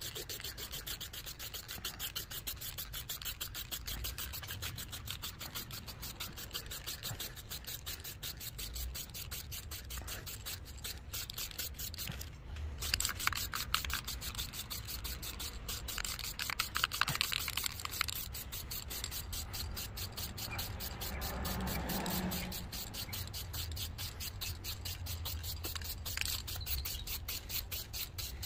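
Aerosol spray can of white enamel paint hissing as paint is sprayed onto a car's bodywork, a little louder in stretches about halfway through.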